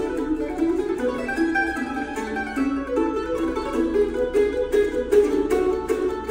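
Two mandolins playing a tune together in duet, a quick run of picked notes over steady strummed accompaniment.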